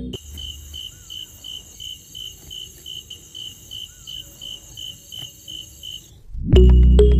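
A cricket chirping in a steady, high, even pulse of about four chirps a second; background music cuts back in loudly near the end.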